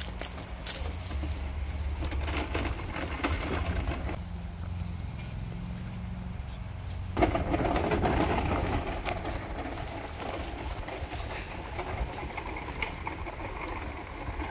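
A petrol push lawn mower wheeled by hand with its engine off, its wheels rolling over grass and a garden path and its plastic grass catcher rattling, with a louder knock about seven seconds in.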